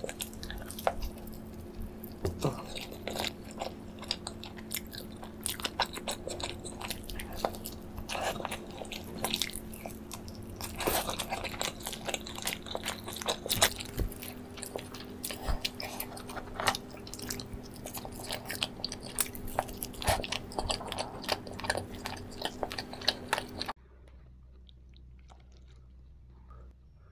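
Close-miked eating of whole roasted chicken: biting and chewing with crisp crunches of the skin and a rapid scatter of short clicks and smacks. About 24 s in it cuts to much quieter eating sounds.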